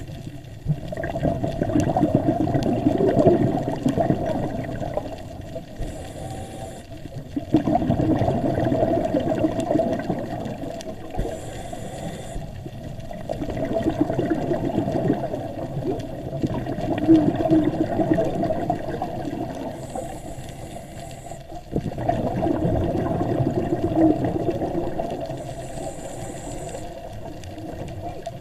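A scuba diver breathing through a regulator: four short hisses of inhaled air, each followed by a long gurgling rush of exhaled bubbles.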